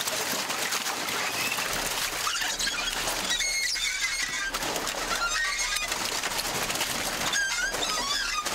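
Clusters of hanging-culture oysters clattering as they are hauled up a steel conveyor chute, shells knocking and rattling against the metal with seawater running off. High squeaks come twice, about three seconds in and near the end.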